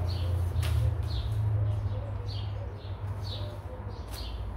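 A bird chirping repeatedly, about five short falling chirps roughly a second apart, over a steady low rumble.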